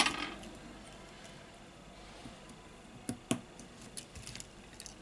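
Small sharp clicks and taps of fingers handling parts inside an opened smartphone, around its circuit board and coaxial antenna cable. Mostly quiet at first, then a handful of quick clicks from about three seconds in.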